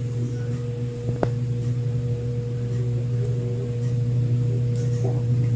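Craftmade Brilliante ceiling fan running on low speed with a steady electrical buzz from its motor, a low hum with a higher tone over it.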